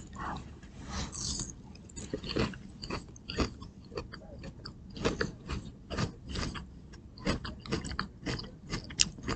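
A person chewing a mouthful of Caesar salad, with quick irregular crisp crunches, several a second.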